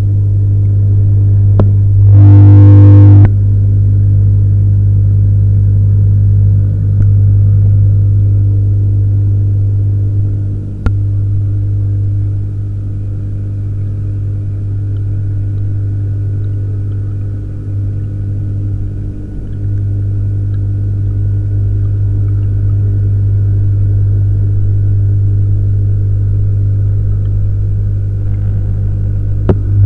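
Steady low hum of a reef aquarium's water pumps, picked up by a camera submerged in the tank. There is a louder stretch about two seconds in and a single click about eleven seconds in.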